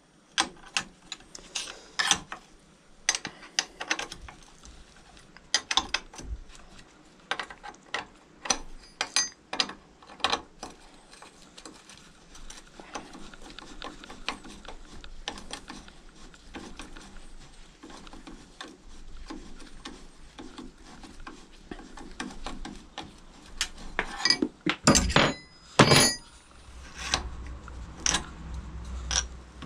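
Irregular metallic clicks, clinks and knocks of hand tools and parts against a Peugeot 103 Vogue moped engine's crankcase held in a bench vise during teardown, with a few louder knocks near the end.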